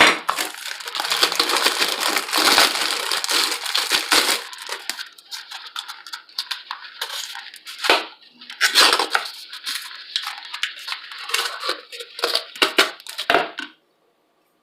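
Crackling, rustling handling of packaging and plastic parts during unboxing: a dense crackle for the first four seconds, then on-and-off bursts with a few sharp knocks, stopping about a second before the end.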